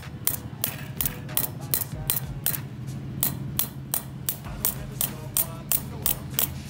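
Repeated sharp metal-on-metal taps, about three a second and fairly even, from hammering a steel rod set against a Shimano HG 8-speed bicycle cassette to free its small cogs.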